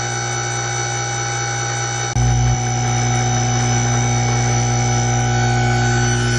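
Loud, steady electrical hum, a buzzing tone with many overtones, which briefly gets louder in its lowest part about two seconds in.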